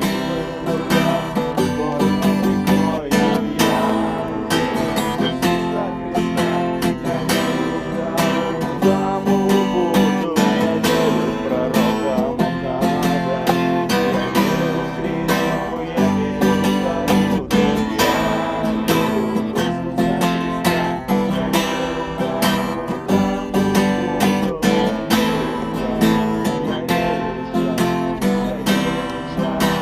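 Acoustic guitar strummed steadily in a song's instrumental passage, no voice.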